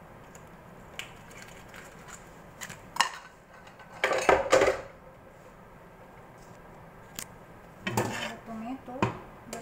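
Metal kitchen utensils clattering and scraping against a steel roasting tray as food is handled: a few scattered clinks, a dense burst of clattering about four seconds in, and another near the end.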